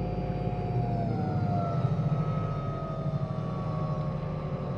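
Hyundai Ioniq Electric's traction motor whining while the car drives slowly, heard inside the cabin over a low rumble. The whine drops slowly in pitch from about a second in. It is a fault: an abnormal whine traced to the electric motor itself.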